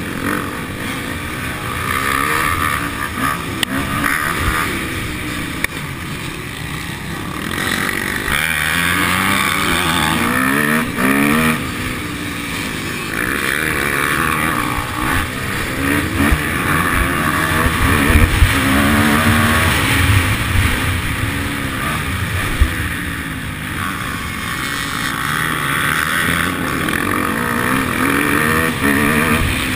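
Motocross bike engine racing on a dirt track, heard from on board: its pitch climbs and drops back again and again as the rider opens the throttle and shifts.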